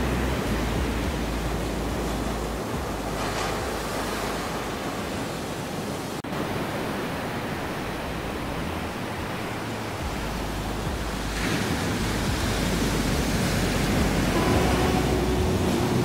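Sea surf: small waves breaking and washing up a sandy beach in a steady rush, surging twice and growing louder in the second half. Soft background music sits underneath, with held notes coming in near the end.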